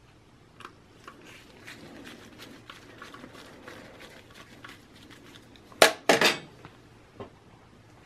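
Phillips screwdriver turning a small screw into a metal 3.5-to-2.5-inch SSD bracket: light metallic ticks and clicks. About six seconds in comes a loud double clatter of metal parts being set down, then a single click.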